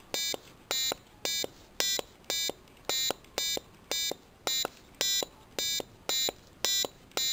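Small piezo buzzer on an Arduino breadboard circuit sounding short electronic beeps, a little under two a second, one beep for each tap of a pushbutton.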